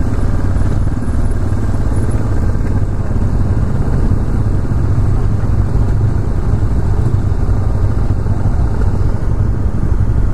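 Yamaha XTZ 250's single-cylinder four-stroke engine running steadily at low speed in slow traffic, a constant low rumble with road and traffic noise around it.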